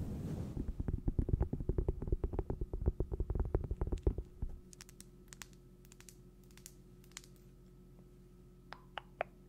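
Rapid soft tapping close to the microphone, about ten taps a second, each with a low thump. It stops abruptly about four and a half seconds in, leaving a few faint, sharp clicks near the end.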